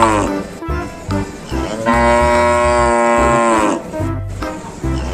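A cow mooing: the end of one moo falling away at the start, then one long moo about two seconds in that drops in pitch as it ends. Background music with a steady beat plays underneath.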